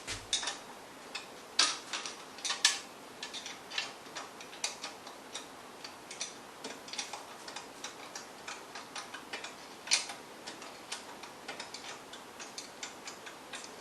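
Ratchet wrench clicking in short irregular runs as the pump's mounting bolts are tightened, with a few louder metal clicks.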